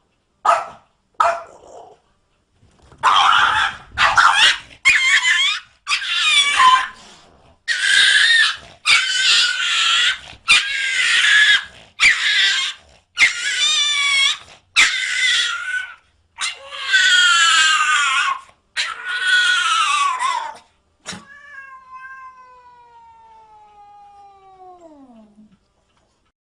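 A cat yowling over and over, one loud drawn-out wavering call about every second, after a few short cries at the start. Near the end comes a fainter, long call that slides down in pitch.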